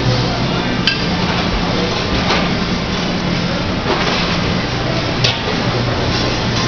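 Buffet dining-room ambience: a steady low hum under dense background noise, with sharp clinks of dishes about a second in and again about five seconds in.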